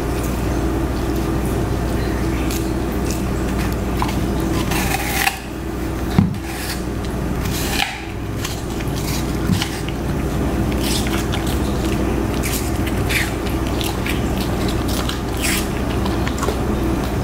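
Siberian husky biting into and chewing a green apple: irregular wet crunches and crackles. A steady low hum lies under it throughout.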